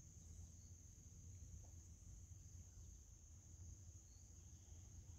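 Near silence: a faint, steady high-pitched chorus of crickets over a faint low rumble.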